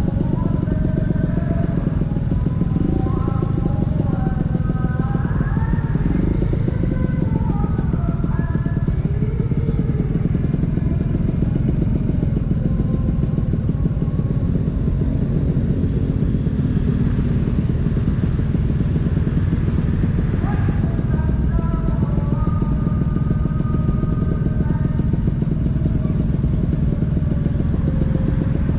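Vespa PX 150's two-stroke single-cylinder engine running through a DRC Victory racing exhaust, a steady loud exhaust note without a break.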